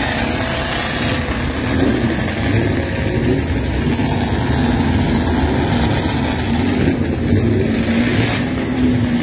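Vintage racing motorcycle engines running and revving, their pitch rising and falling, with one engine holding a steady note near the end.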